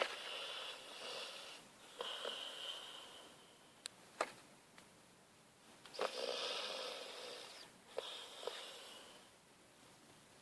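Golden retriever snoring in its sleep: long breathy snores, four of them with a pause of a couple of seconds in the middle, and a few short sharp clicks between them.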